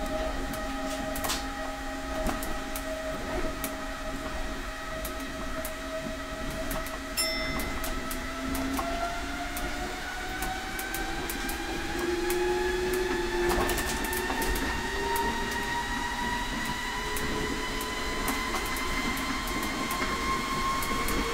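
Tama Monorail train running, its drive whining in several tones over a low rumble. The whine climbs slowly in pitch from about a third of the way in as the train picks up speed, with scattered faint clicks.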